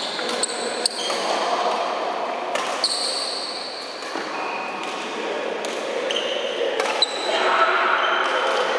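A badminton rally in a large, echoing indoor hall: sharp cracks of rackets striking the shuttlecock every second or so, and short high squeaks of court shoes on the floor.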